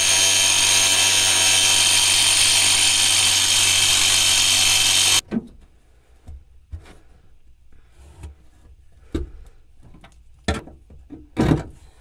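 An angle grinder runs steadily, cutting into a rusted steel elevator bolt, and cuts off suddenly about five seconds in. A few sharp knocks and clicks follow, the loudest near the end, as a hand tool is worked on the bolt.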